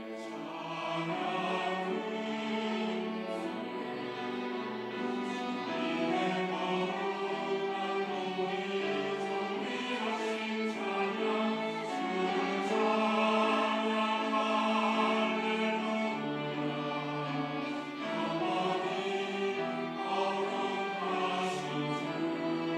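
Church choir singing a praise anthem in parts, with instrumental accompaniment.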